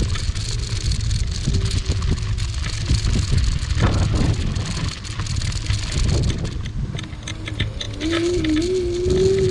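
AOVO electric scooter being ridden over a gravel path onto asphalt: tyre noise with rattling over the gravel and low wind rumble on the microphone. A faint wavering whine grows near the end.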